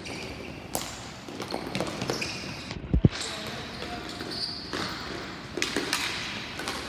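Ball hockey play: scattered clacks and taps of sticks and ball, with one heavy thump about three seconds in.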